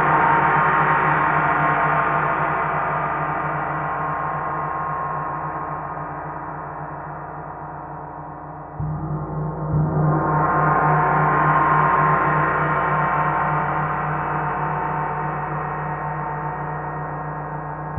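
A 30-inch (75 cm) TTE KongKlang Earth gong, a flat gong, ringing with a deep hum and a dense wash of overtones that slowly fades. About halfway through it is sounded again with a mallet, and the tone swells back up over a second or two before slowly dying away.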